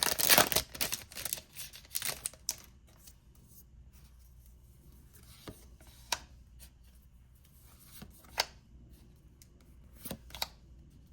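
Foil booster-pack wrapper of Pokemon cards crinkling and tearing for about two seconds as it is pulled open, followed by a few sharp ticks from handling the pack and cards.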